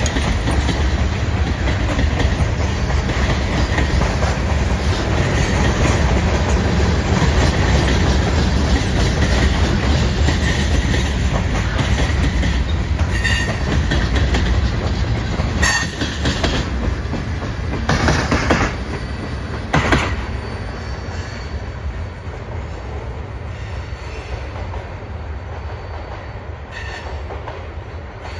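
Freight train cars (tank cars and covered hoppers) rolling past, steel wheels running on the rails, with a few sharp knocks in the middle. The sound fades toward the end as the tail of the train moves away.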